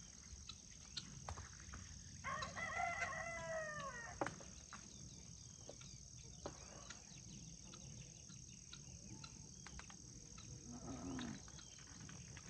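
A rooster crowing once, a single crow about two seconds long that drops in pitch at its end. A steady high drone of insects runs underneath.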